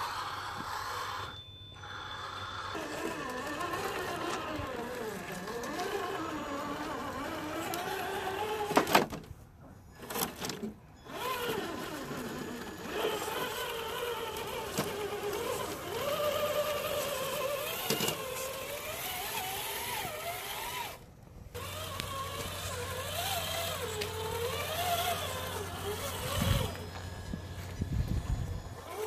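Electric motor and gear whine of a scale RC rock crawler, its pitch rising and falling as the throttle is worked while the truck climbs rock, broken by a few abrupt cuts.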